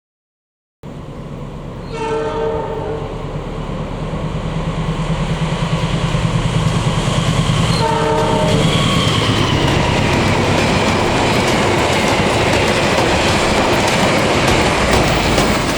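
Passenger train approaching and passing at speed. The locomotive's horn sounds twice, about six seconds apart, while the rumble and clatter of the wheels on the rails grow steadily louder.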